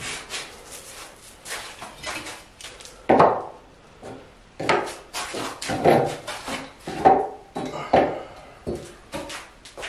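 Hand plane working the edge of an oak slab: short wooden strokes and knocks, about one a second from about three seconds in, after a stretch of quieter handling clicks.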